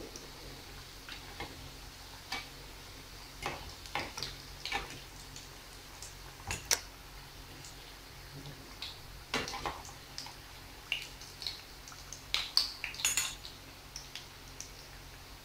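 A metal fork and spoon clinking and scraping irregularly against a frying pan while turning dough sticks in hot oil, with a cluster of louder clinks near the end, over a faint steady sizzle of the frying oil.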